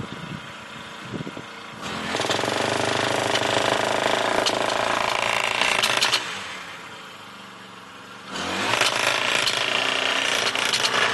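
GPD-30 under-sidewalk boring tool running as it bores through the soil. It comes up to full power about two seconds in, eases off around six seconds, and runs hard again from about eight seconds as the bore reaches the exit pit.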